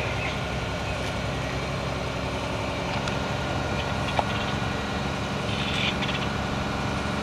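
An engine idling steadily with a low, even hum; a single sharp click about four seconds in.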